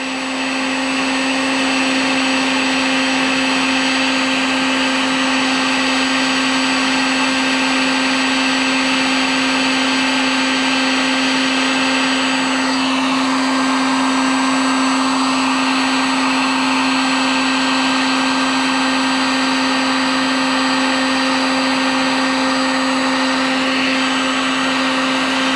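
A Harbor Freight heat gun running steadily: a constant motor hum over rushing air as it melts polyethylene plastic to weld a patch over a leak in a plastic kayak.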